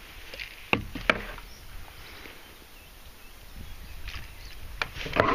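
Sharp knocks and clicks of handling in a small boat while a landed pike is unhooked: two about a second in, a quick cluster near the end, over a low wind rumble on the microphone.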